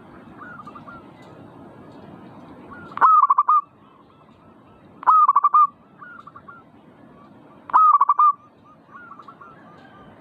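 Zebra dove (perkutut) cooing: three loud runs of its quick staccato coo, about half a second each and evenly spaced, with fainter coos in between.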